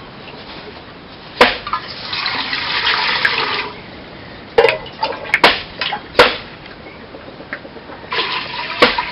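Water poured from a small metal mug into a metal cooking pot, once about two seconds in and again near the end, with sharp clinks of the mug knocking against the pots in between.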